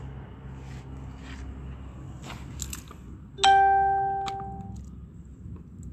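A few light knocks, then about three and a half seconds in a single sudden bell-like ding with a clear pitch that rings out and fades over about a second.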